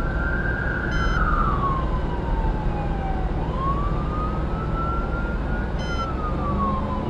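Fire department response vehicle's siren in wail mode, rising and falling slowly about once every four to five seconds, over steady road and engine noise at highway speed. Two brief beeps sound about a second in and again near the end.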